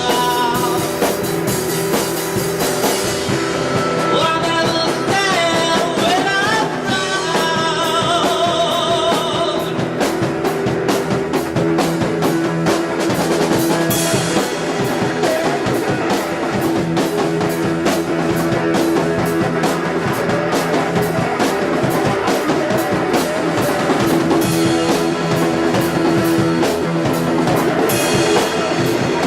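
Rock band playing: a driving drum kit and guitar, with some singing.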